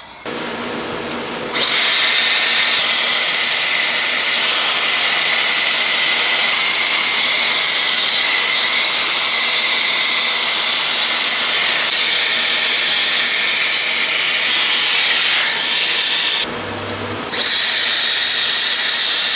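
Hot air brush styler blowing steadily while drying and styling hair: rushing air with a thin high motor whine. It jumps louder about a second and a half in and cuts out for under a second near the end before running again.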